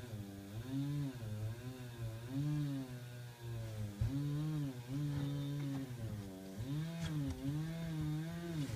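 Chainsaw engine being revved up and down repeatedly while cutting, its pitch rising and falling about once or twice a second.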